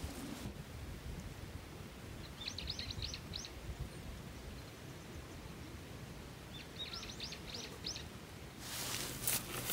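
A small songbird sings two short phrases of quick, high, upswept notes, about four seconds apart, over a low steady outdoor rumble. Near the end, rustling and scraping sounds from handling in the plants start.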